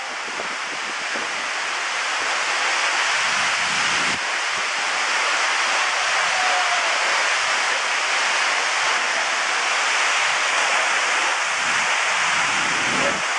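Waterfall rushing: a steady, dense hiss of falling water that grows a little louder over the first couple of seconds, with low rumbles of wind on the microphone now and then.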